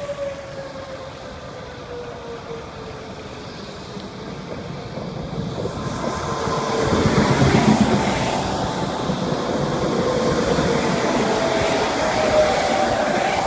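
Wet-road tyre and traffic noise on a freeway, heard from inside a car, swelling about halfway through as vehicles move. Under it runs a steady wailing tone that slowly dips and rises again, like a distant outdoor warning siren.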